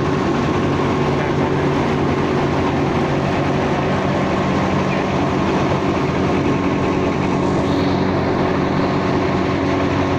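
Engine-driven mobile rice mill running steadily at a constant speed, milling paddy into rice: an even, loud machine drone with a low hum.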